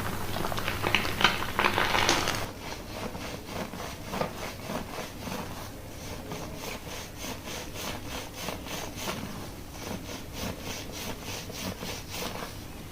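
Fingers scrubbing and massaging a lathered scalp during a shampoo: a rhythmic scratchy rubbing at about two to three strokes a second, after a louder hissing rush for the first two seconds.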